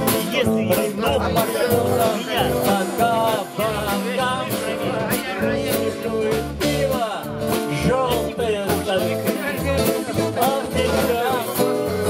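Live band music on strummed acoustic and electric guitars, with a wavering melody line over a steady strum.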